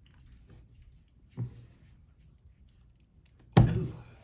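Items being handled: faint clicks and light rustling, a soft knock about a second and a half in, then a sudden loud thump near the end.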